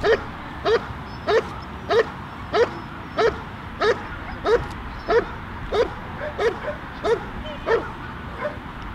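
A dog barking steadily at a protection helper, about three barks every two seconds, in the hold-and-bark guard of an IGP protection exercise. The barks grow weaker and more spaced near the end.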